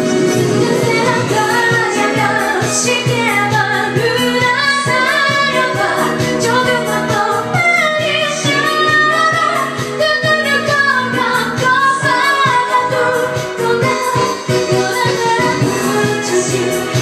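A woman singing a pop song over a backing track, with her sustained, bending melody line above steady accompaniment.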